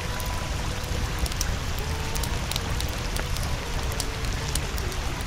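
Steady rain-like hiss with scattered faint crackles, under a faint, slowly wavering tone.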